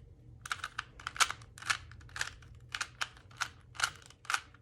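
Plastic 3x3 Rubik's Cube layers being turned by hand in quick succession, about a dozen short clicks at roughly three a second, as a solving algorithm is carried out on the last layer.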